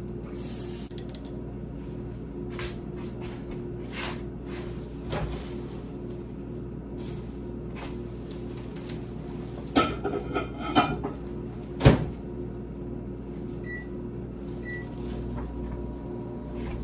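Kitchen work sounds: scattered knocks, then a burst of clattering dishes about ten seconds in and a sharp loud knock soon after, followed by two short electronic beeps, all over a steady hum.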